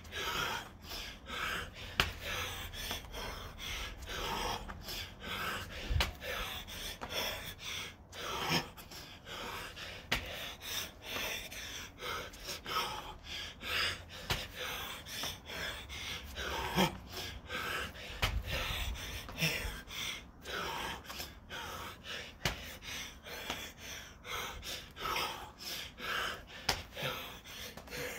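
Heavy, rapid breathing and gasps of a man worn out late in a long set of burpees, with a few sharp thumps from his body on the mat.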